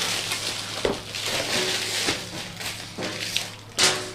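Packaging being handled as a camera box is opened: rustling and crinkling, with a few light knocks.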